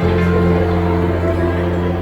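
Background music: sustained chords over a held bass note, with a soft plucked-string feel.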